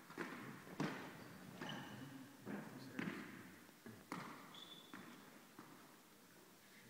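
Tennis ball bounced on the court before a serve: a series of sharp, irregularly spaced knocks, with a short high squeak about four and a half seconds in.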